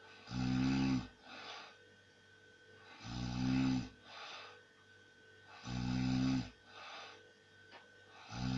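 A man snoring heavily: a loud, rasping snore about every two and a half seconds, four in all, the last starting near the end, each followed by a softer breath.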